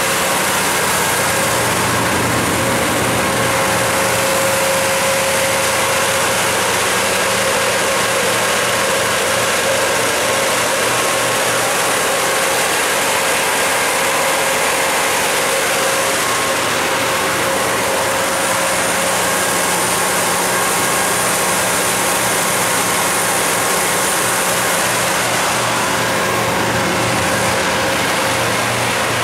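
Kohler 125RZG generator set's GM 8.1-litre V8 natural gas engine running steadily at constant speed, with the rush of its spinning radiator fan.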